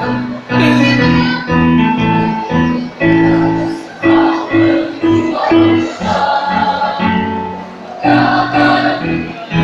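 Choir singing in harmony, several voices holding short notes that change about every half second, with a brief softer passage near the end.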